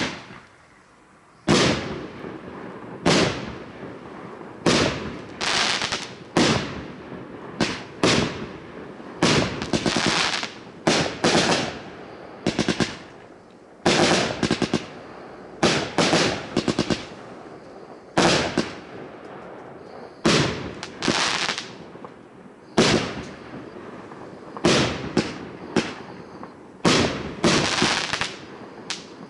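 A 100-shot, 25 mm compound firework battery firing: sharp reports and bursting shells, some single and some in quick runs of several, about one to one and a half seconds apart. A single sharp bang comes first, followed by a short pause before the steady firing begins.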